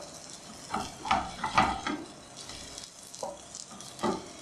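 Egg-battered bread slices sizzling in hot oil in a non-stick frying pan. A spatula scrapes and knocks against the pan several times as the slices are turned and pushed together.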